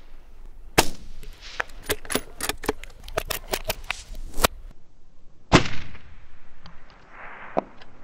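Two rifle shots, one about a second in and one about five and a half seconds in, the second ringing out with a long trailing echo; between them a quick run of sharp clicks and knocks. The second shot is the one that knocks down the running coyote at about 300 yards.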